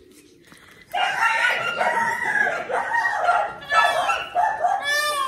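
Chickens calling, with a rooster crowing among clucking hens, starting suddenly about a second in.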